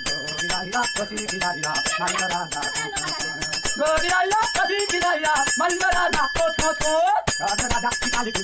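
Chidathalu, small hand cymbals, struck together in a fast, steady rhythm with a bright metallic ring. A voice sings or chants along over them.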